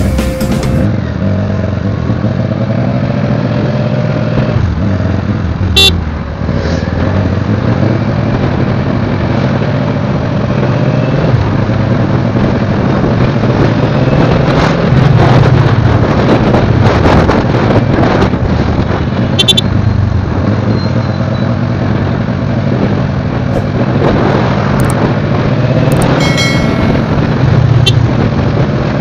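Sport motorcycle's engine running under way, its pitch rising and falling as the rider accelerates and shifts, over steady wind and road noise. A few short horn beeps sound from traffic.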